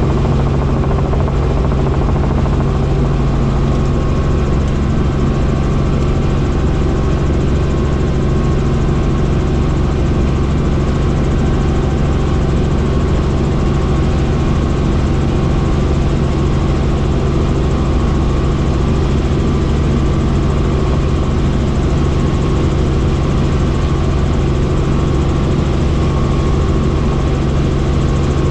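Helicopter in flight: steady, loud engine and rotor noise with a strong low hum that holds constant throughout.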